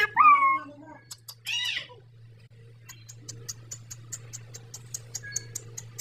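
A green parakeet gives two short, high calls, the first with a sliding pitch and the second rising and falling. A run of quick, sharp clicks follows, about four a second.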